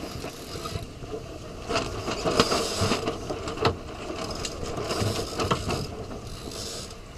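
Clicking and knocking of small-boat gear over the rush and splash of water against a sailing dinghy's hull in chop. It is busiest and loudest in the middle few seconds, with a couple of sharp knocks.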